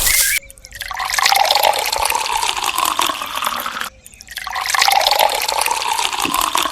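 Water running and splashing, heard in two stretches of about three and a half seconds each, both cut off suddenly.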